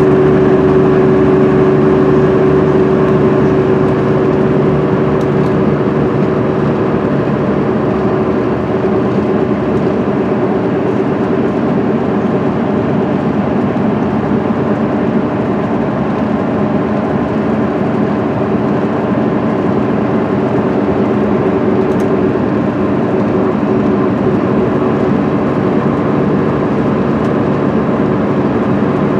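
Cummins ISM inline-six diesel of an MCI D4500CL coach running at highway speed, heard from inside the cabin over steady tyre and road noise. The engine's steady pitched drone is clearest at first and eases after about seven seconds into a more even rumble.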